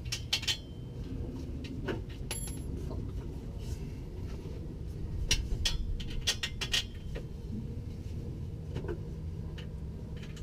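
Irregular metallic clinks and knocks as the 240SX's exhaust pipe is held up and fitted at its flange joint under the car, over a steady low rumble. The clinks come in scattered clusters, thickest around the middle.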